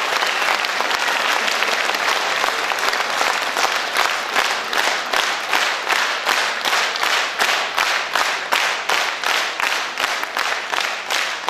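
Audience applauding; about a third of the way in the clapping falls into a steady rhythm in unison, roughly two to three claps a second.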